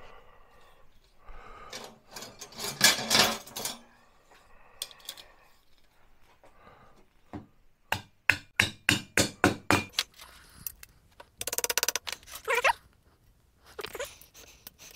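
A white-headed mallet tapping the sections of a metal shelving upright together: a quick run of about eight sharp knocks over two seconds, after some handling and scuffing of the parts. A short fast clicking rattle follows a couple of seconds later.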